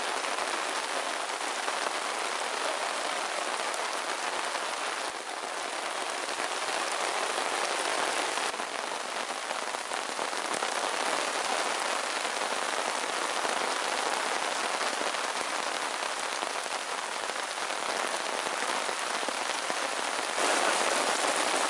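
Steady rain falling, an even hiss of drops with no other sound standing out.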